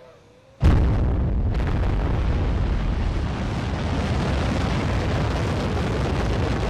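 Delta II rocket launching: its engine noise starts suddenly about half a second in, then runs on loud and steady, strongest in the deep bass.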